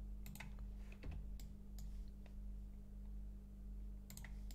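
Faint clicks of a computer keyboard and mouse in use: scattered single keystrokes about a second apart, then a quick cluster of clicks near the end. A steady low electrical hum sits underneath.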